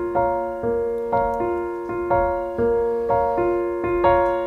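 Digital piano playing alone: a steady figure of single notes struck about twice a second, each ringing and fading before the next.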